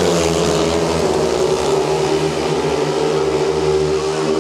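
Several 500cc single-cylinder speedway motorcycles racing together, their engines running hard at high revs. The pitch dips a little in the first second as they go through a bend, then holds steady.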